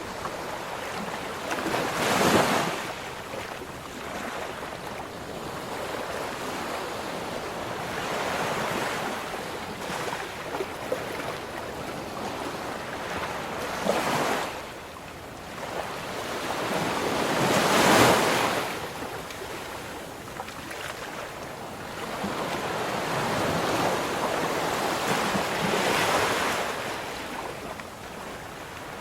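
Ocean surf: a steady hiss of water with waves breaking in four swelling surges, one near the start, two close together in the middle (the second the loudest), and a broader one near the end.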